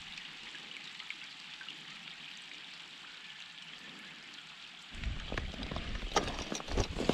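A soft, steady hiss like gentle water. About five seconds in, louder close knocks, clicks and rustling start as a small redfin is handled on the kayak.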